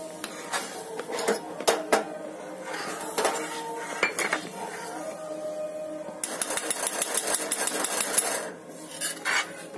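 A spatula scraping and knocking against a pan while stirring thick sooji halwa: scattered knocks at first, then a couple of seconds of fast, rapid scraping strokes a little past the middle.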